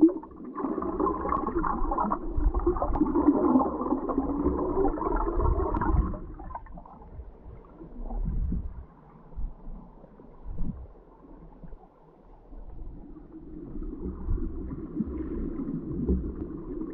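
Muffled underwater water noise heard through a GoPro's waterproof housing as the camera rig is towed along: rushing and gurgling with a wavering moan. The moan fades about six seconds in, gives way to a few low thumps, and builds again near the end.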